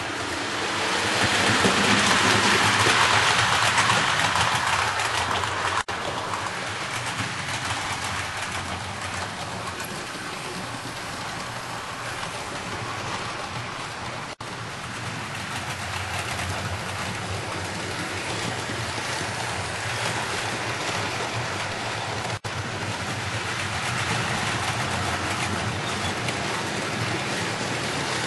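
OO gauge model trains running on the layout: a steady rattle and hum of wheels and motors on the track, loudest in the first few seconds. The sound cuts out for an instant three times, about 6, 14 and 22 seconds in.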